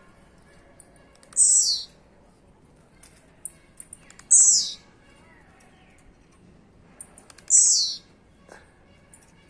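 Blue-black grassquit (tiziu) giving its short, high, buzzy downward-sweeping call three times, about every three seconds, each preceded by faint ticks; the keeper takes the noise to come from the bird's wing.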